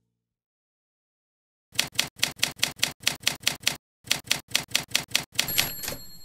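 Typewriter keys striking one at a time, about five a second, starting almost two seconds in: a run of about eleven strokes, a short break, then about seven more. A typewriter bell rings near the end.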